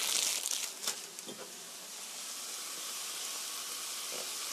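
Tomatoes and onions sizzling in a frying pan: a steady hiss, with a few quick crinkles in the first second as the cheese slices are torn apart.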